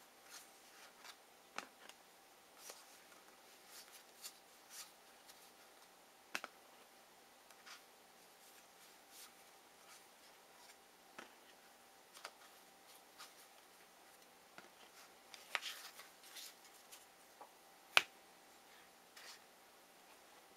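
Trading cards being handled and set down: scattered faint clicks and light rustles, a small flurry of them a little past the middle and one sharper click near the end, over a faint steady hum.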